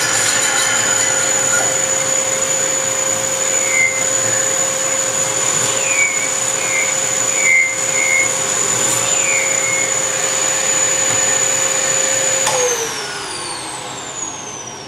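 Electric power-tool motor running steadily with a high whine, then switched off about twelve seconds in and winding down, its pitch falling as it slows.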